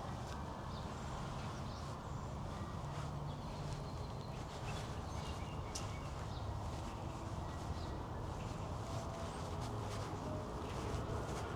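Park ambience: a steady low rumble of city traffic, with short bird chirps now and then and the soft steps of someone walking.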